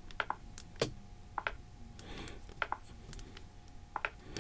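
Light, irregular clicks and taps from two smartphones in cases being handled and pressed during a face-unlock test, about a dozen in all, over a faint steady hum.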